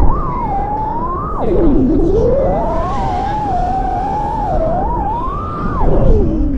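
Brushless motors of an FPV quadcopter (Oddity Roxy 36 with 1505 3750kv motors) whining, their pitch rising and falling with the throttle, with two sharp drops and climbs back as throttle is chopped and punched, over a low rumble of wind and prop wash.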